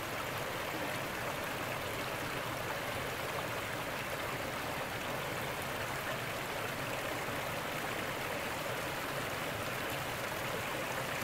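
A small woodland stream running and splashing over mossy rocks and stones in little cascades, a steady even rush of water.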